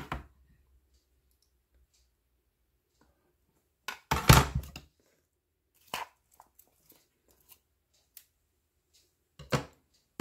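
Chopped vegetables being scraped across a plastic cutting board into a plastic bowl, heard as a few short scrapes and knocks with pauses between them. The longest and loudest scrape comes about four seconds in.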